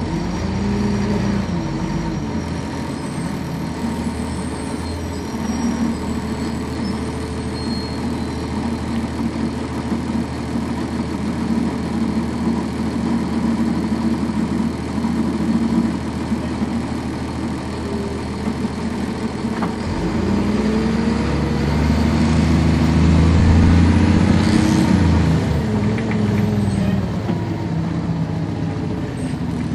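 Cummins ISC inline-six diesel engine of a 1999 NovaBus RTS transit bus, heard on board, running with a steady note. About two-thirds of the way in the engine note climbs and grows louder as the bus pulls away under power, then drops back near the end.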